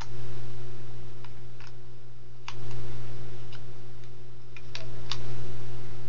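Small plastic clicks and taps from a GigaWare wall charger being handled, scattered through a few seconds with two close together near the end, over a steady low hum.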